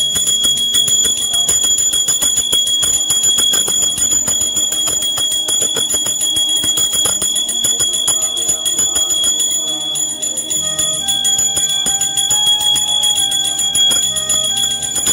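Small brass puja hand bell (ghanti) rung rapidly and without pause during worship: a continuous loud jangling of fast clapper strikes over a steady high ring.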